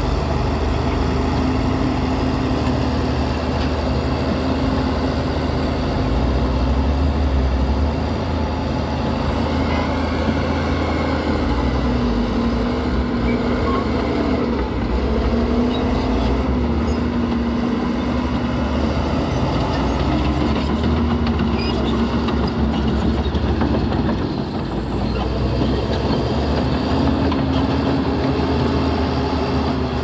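Heavy earthmoving machinery's diesel engine running continuously, its pitch wavering a little as the revs change.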